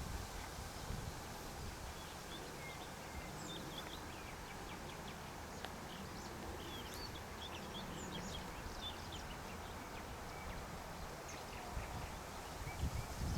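Nightingale singing at a distance: quick runs of short whistles and chirps, busiest in the middle stretch, over steady outdoor background noise.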